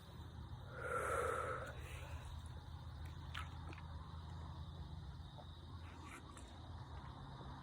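A person's long, breathy exhale about a second in, taking a breather from chugging fizzy water. After it, a faint steady low hum with a few small clicks.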